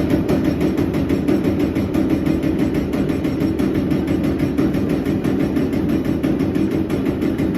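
Servo-driven CNC turret punch press punching sheet metal in a rapid, even rhythm of strokes, roughly eight to nine a second, over a steady machine hum.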